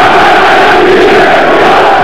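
Large crowd cheering and shouting, many voices blended into one steady, loud wash of noise.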